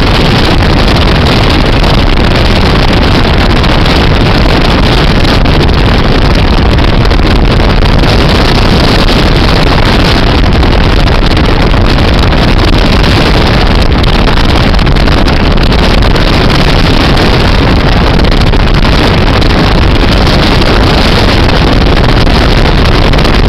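Loud, steady rush of wind and road noise from a car driving at highway speed, filmed at the side window with heavy wind buffeting the microphone.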